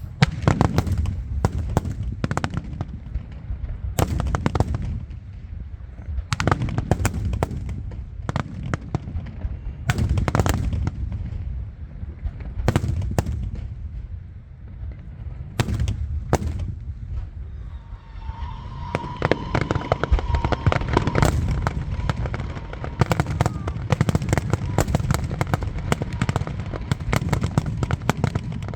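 Aerial fireworks display: shells bursting in repeated loud bangs, each with a low rumbling echo. The bangs come every second or two at first, then from about two-thirds of the way through turn into a dense, rapid crackling barrage.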